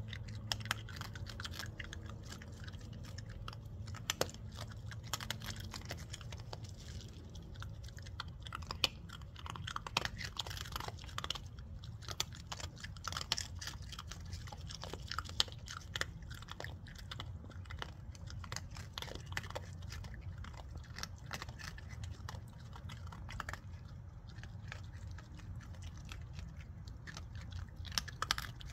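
A Virginia opossum and a raccoon chewing dry kibble: a steady run of irregular crunches and smacking bites. A steady low hum lies underneath.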